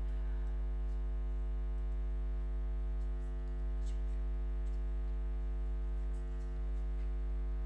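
Steady electrical hum: a low drone with a stack of fixed tones above it, unchanging throughout.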